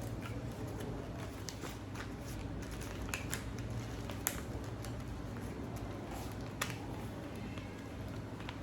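Sheet of origami paper being handled and creased by hand, giving scattered small crackles and clicks, with a sharper crackle about four seconds in, over a steady low hum.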